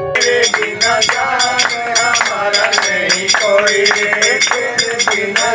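A group of passengers singing a Hindu devotional bhajan (kirtan) together, with a steady rhythmic beat keeping time, about three to four strokes a second.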